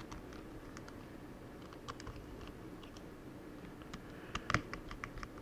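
Scattered light clicks and taps of small metal parts as a laptop's copper heat sink is set onto the motherboard and its screws are driven in with a small screwdriver, with a quick cluster of louder clicks about four and a half seconds in.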